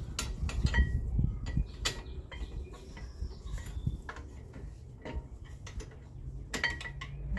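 Hand tools working on metal car parts: scattered metallic clicks, clinks and knocks, with a few louder strikes near the end, over a steady low hum.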